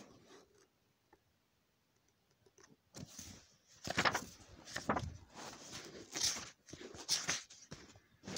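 Irregular rustling and scuffing handling noises, starting about three seconds in after a short stretch of near silence.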